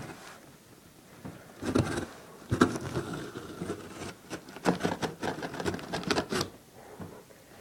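Cardboard box and packaging being handled and opened by hand: irregular rustling, crinkling and scraping with small taps, coming in clusters after about the first second and dying down near the end.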